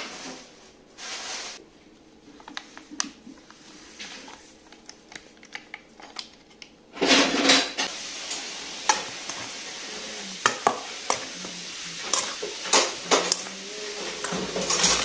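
A seasoning packet rustling and being shaken out, then a plastic spatula mixing raw chicken pieces in a stainless steel bowl. In the second half there are frequent sharp clicks and scrapes of the spatula and meat against the metal bowl.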